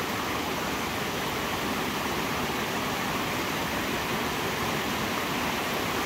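Water rushing over the small cascades of a waterfall into a pool: a steady, even rushing noise.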